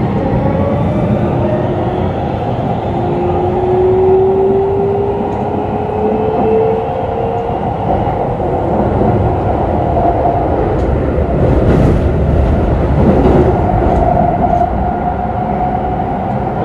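Keikyu New 1000 series electric train running, its Siemens VVVF inverter traction motors giving a whine that rises in pitch over the first several seconds as the train accelerates. Underneath is the steady rumble of wheels on rail, with a few clicks near the end.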